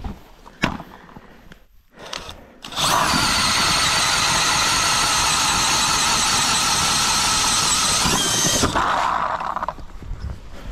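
DeWalt cordless drill spinning an ice auger to bore a hole through lake ice. After a few sharp clicks, a steady high motor whine starts about three seconds in, runs for about six seconds and stops, followed by a short, lower whir.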